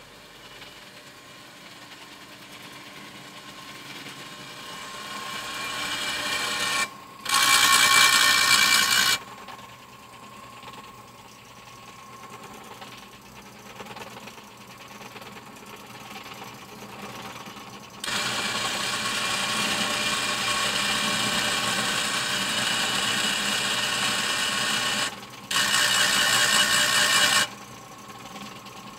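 Cincinnati 1808G power shear running under power: a mechanical whir that builds over several seconds, then two loud spells of machine noise of about two seconds each, starting and stopping abruptly, about seven seconds in and again near the end. Between them a steadier, louder run lasts about seven seconds.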